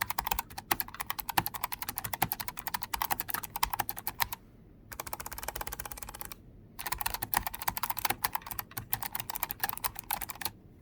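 Logitech G915 TKL keyboard's low-profile GL Clicky switches clicking under fast general typing, with a brief pause about four seconds in and a quieter run of keystrokes before full-speed typing resumes.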